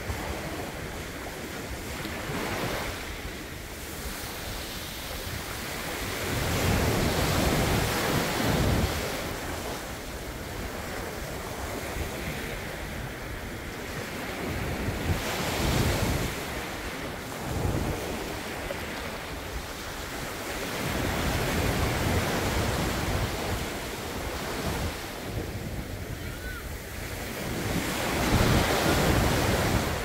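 Surf on a sandy beach: small waves breaking and washing up the sand, the rush swelling and easing about every six to seven seconds.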